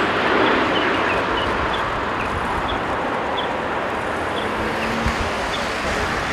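Airbus A380's four Engine Alliance GP7200 turbofans heard from a distance as a steady jet rumble while the airliner flares and touches down. Faint short high chirps repeat every half second or so over the noise.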